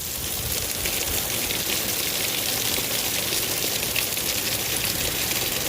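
Heavy rain pouring down, a steady dense patter of drops with many small splashes.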